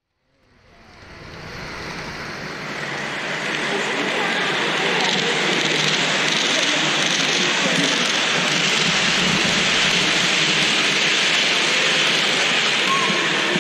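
Indistinct murmur of many voices in a large echoing room, with a steady hiss-like wash of noise, fading in over the first few seconds and then holding steady.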